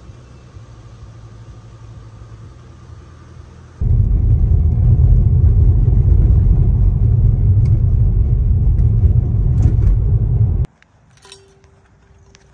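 Deep road and engine rumble inside a moving car's cabin, loud and steady, cutting off abruptly near the end. A quieter steady hum comes before it.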